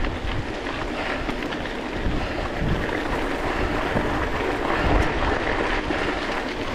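Bicycle tyres rolling fast over a gravel forest road, crunching steadily with many small clicks and rattles, while wind gusts buffet the action-camera microphone.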